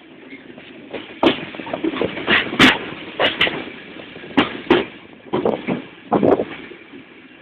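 Passenger train's wheels clattering over rail joints and points, heard from inside the coach: a run of sharp, irregular knocks, many in quick pairs, starting about a second in.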